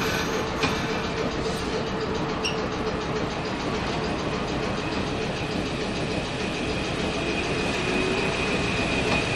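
Fukui Railway 770-series tram running along street track, heard from inside the cab: a steady rumble of motors and wheels on rail. A high thin whine comes in about halfway through and grows stronger near the end.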